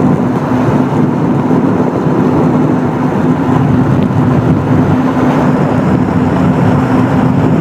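Jet ski engine running steadily: a constant hum over a dense rushing noise, with no change in pitch or level.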